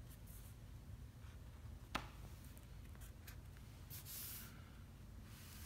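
Faint short strokes of a marker pen making small marks at the corners of a paper template on a plastic panel, with a longer stroke about four seconds in and a single sharp tick about two seconds in, over a low room hum.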